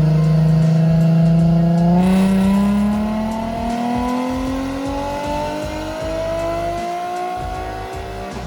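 Nissan 350Z's V6 engine holding steady revs, then climbing slowly and smoothly in pitch for about six seconds, as in a long wide-open-throttle pull, before cutting off. Music plays underneath.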